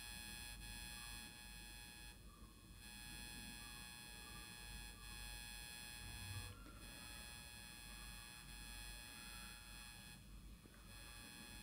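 Near silence with a faint, steady electrical buzz in the recording, made of many even high tones, which cuts out briefly three times.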